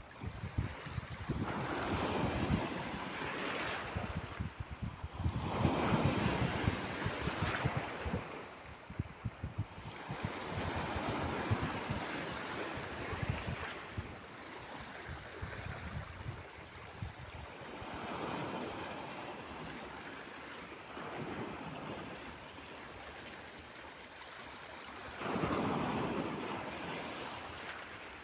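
Sea surf: waves breaking in slow surges every few seconds, each swelling and fading away, with wind rumbling on the microphone.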